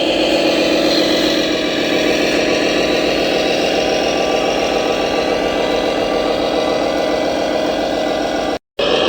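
Remote-control toy dump truck running with a steady, even mechanical hum, cutting out for a moment near the end.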